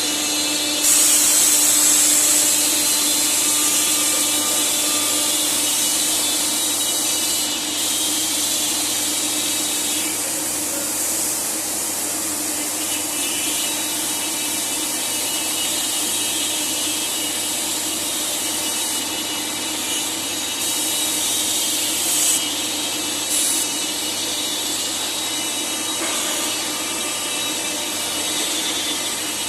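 CNC router spindle running at high speed with its bit cutting wood: a steady high whine under a loud hiss of cutting that comes in about a second in and rises and falls as the cut goes on.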